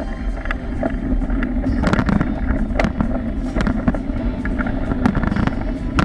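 Mountain bike descending a bumpy dirt trail: steady rumble of knobby tyres on dirt and wind buffeting the microphone, with frequent rattles and knocks from the bike and camera mount over the bumps.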